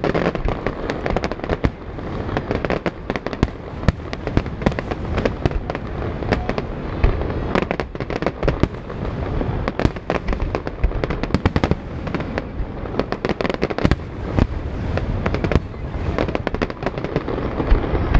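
Fireworks display going off in rapid succession: many sharp bangs, one after another, over a continuous low rumble.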